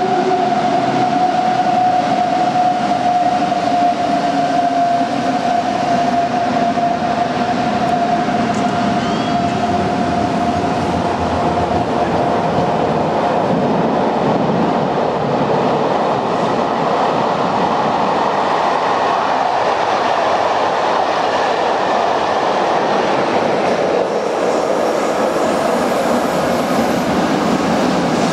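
Electric train running through a station: a steady rumble of wheels on the rails, with a whine from the drive equipment that sinks slowly in pitch and fades out over the first dozen seconds.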